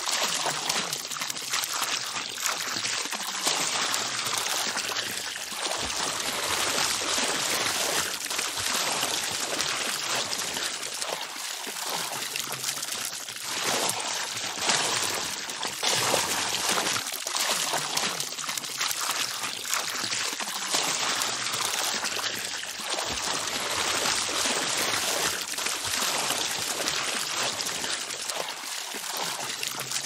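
Water running and splashing steadily, a continuous trickling flow.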